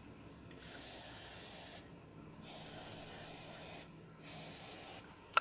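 WD-40 aerosol can spraying onto the ratchet of a boat-trailer tie-down strap in three hissing bursts, the last one shorter. A single sharp click at the very end.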